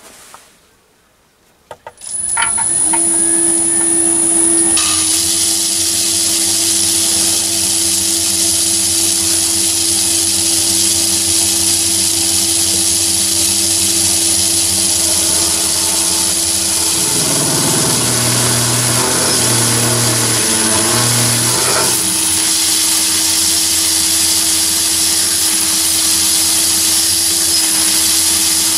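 A Myford lathe is switched on about two seconds in and runs steadily with a constant high whine and a low hum. An ordinary twist drill fed from the tailstock cuts into the spinning workpiece, adding a steady cutting noise that briefly pulses for a few seconds past the middle.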